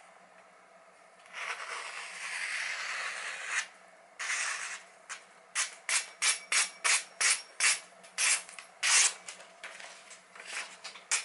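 A freshly sharpened kitchen knife slicing through glossy catalogue paper in a paper-cutting test of its edge. There is one long cut, then a short one, then a quick run of short slicing strokes, about three a second.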